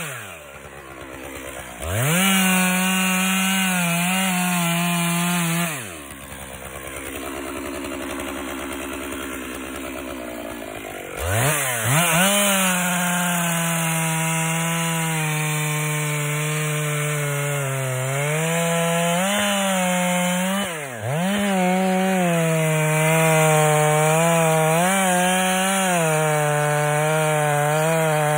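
Two-stroke chainsaw running at high revs cutting into a tree. The chainsaw drops to idle right at the start and again for about five seconds in the first half, then revs back up, with short throttle dips later on.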